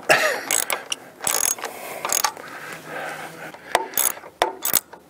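Socket ratchet wrench clicking in several short bursts with pauses, as the nuts on the U-bolt clamps holding the antenna boom to the mast are tightened.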